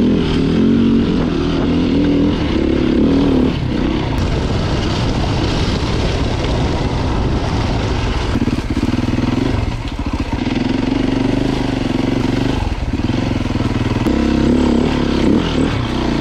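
Beta RR 450 four-stroke single-cylinder dirt bike engine running under changing throttle, revving up and easing off again and again, with short lulls about four and ten seconds in.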